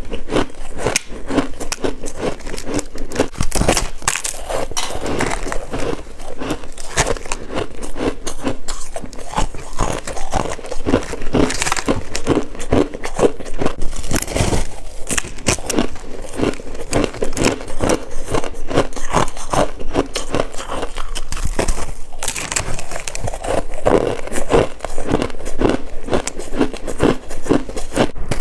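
Freezer frost being chewed close to the microphone: dense, irregular crackling crunches with no break.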